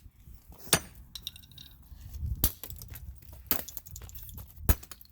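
Sharp clicks and clinks of hard plastic Rubik's Cube pieces knocking together: four separate knocks spread out, with a brief light clinking between the first two.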